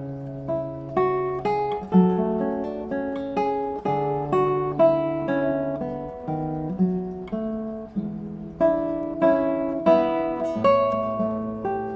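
Solo acoustic guitar music: a flowing picked and strummed piece with plucked notes ringing over a held bass line.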